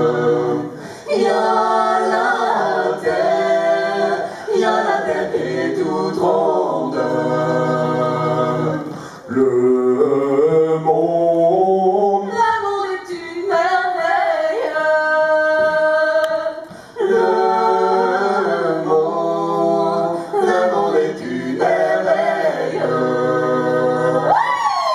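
A small group of men and women singing a cappella in close harmony over a steady held low note, the chords shifting every second or so. Near the end one voice swoops up and back down.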